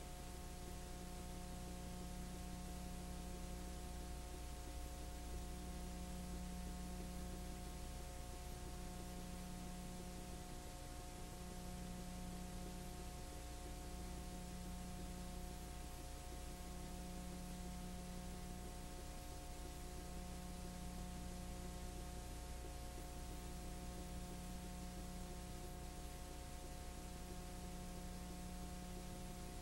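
Faint steady electrical hum and hiss with no other sound, a low tone in the hum swelling and fading about every two seconds.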